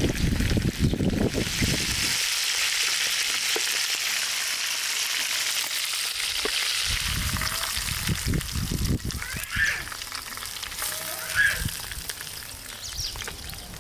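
Chicken pieces and potato wedges frying in hot oil in open pans over a fire: a steady sizzle, strongest in the first half, with some low knocking and handling of the pans at the start and again in the middle.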